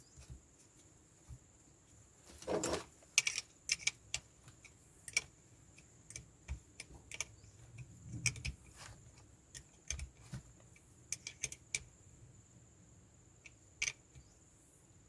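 Irregular light clicks and taps of small parts being handled while the new blower fan impeller is fastened onto its motor shaft, with a slightly louder clatter about two and a half seconds in.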